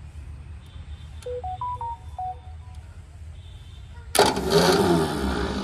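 Starter motor of a Swaraj 724 FE tractor cranking its diesel engine. It has been switched in directly by shorting across the starter wiring with pliers, because the key starter switch is broken. The cranking cuts in suddenly about four seconds in, loud, and carries on for about a second and a half, after a few short beeping tones in a quick stepped tune.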